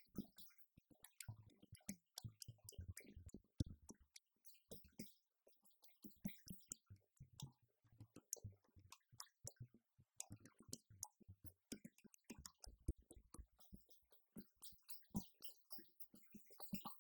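Faint rapid clicks and soft low thumps in a playing rhythm: drumsticks tapping the pads of an electronic drum kit, with the kick pad thudding underneath.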